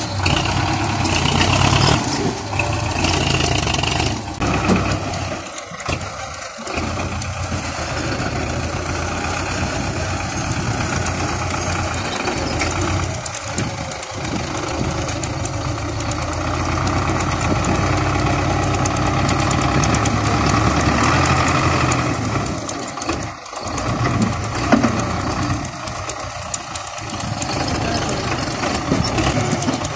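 Belarus MTZ-50 tractor's four-cylinder diesel engine running steadily while it works the front loader, with brief dips in the sound several times.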